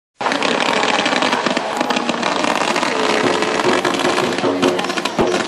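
Fireworks going off in a dense, continuous crackle and hiss, with many sharp cracks.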